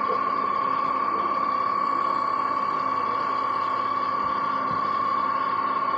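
A steady, high-pitched whine that holds one pitch, with a fainter low hum beneath it.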